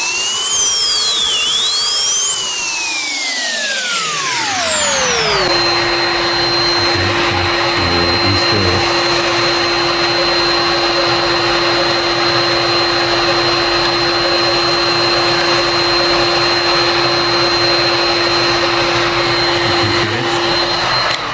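Heat gun running, its fan motor whining and blowing hot air onto a stuck battery-mounting bolt to loosen it. The whine rises and then falls over the first few seconds, then holds steady, and it switches off near the end.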